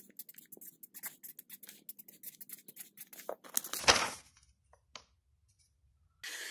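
Felt-tip marker scratching across paper in quick strokes as letters are written. This is followed about four seconds in by a brief, louder rush of noise, then a single click.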